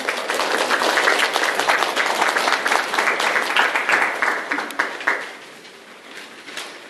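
Audience applauding, the clapping dying down about five seconds in.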